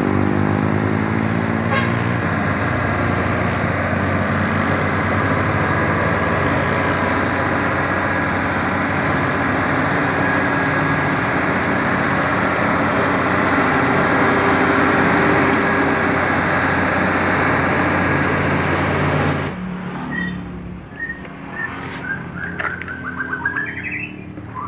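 Concrete mixer truck running steadily, its engine a loud, even hum that cuts off abruptly about three-quarters of the way in. Small birds chirp faintly near the end.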